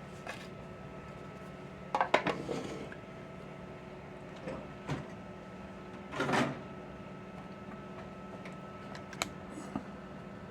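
Kitchen handling noises over a steady low hum: a short clatter about two seconds in, a brief scrape about six seconds in, and two light ticks near the end.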